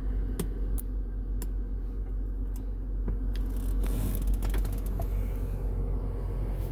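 Toggle switches on an aftermarket LED switch panel clicking, several single clicks and a few quick runs, over the steady hum of an idling vehicle engine.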